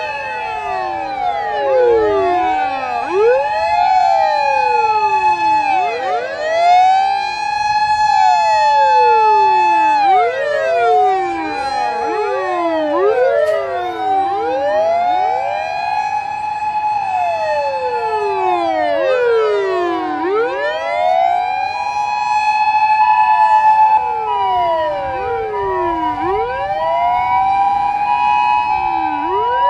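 Several Japanese fire engine sirens wailing at once as a convoy passes. Each siren's pitch rises and falls in long sweeps, the sirens overlapping out of step over a steady held tone. A choppy on-off tone joins about three-quarters of the way through.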